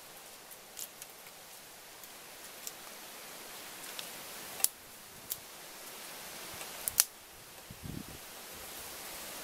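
Dry sticks being laid on an earthenware stove: scattered sharp wooden clicks and knocks as the sticks strike each other and the clay rim, two of them much louder, about halfway and about two-thirds through, over a steady hiss.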